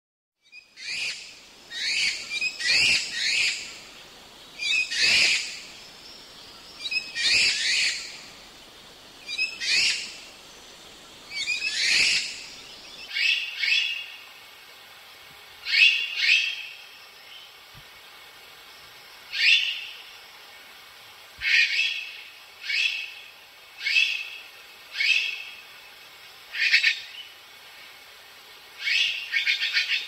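White-winged magpie calling: a series of short, harsh calls, one every second or two, some given in quick pairs or clusters.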